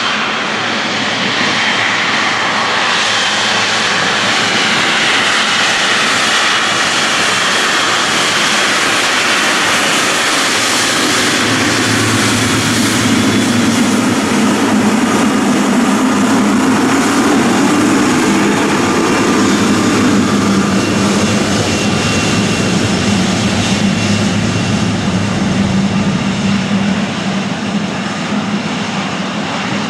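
Boeing 777 freighter's twin jet engines at taxi power as the aircraft rolls past: a steady whine with a high tone on top, joined about halfway through by a deeper rumble as the plane passes broadside and turns its exhaust away. Loudest around two-thirds of the way in, then easing off near the end.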